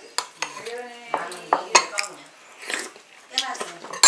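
A metal spoon and chopsticks clink against ceramic bowls while soup is eaten, giving several sharp clicks.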